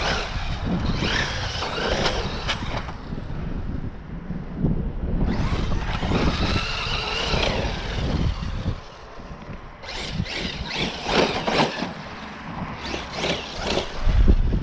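Traxxas X-Maxx RC monster truck's brushless electric motor whining as the truck accelerates away in bursts, the whine rising in pitch with each run, over a low wind rumble on the microphone.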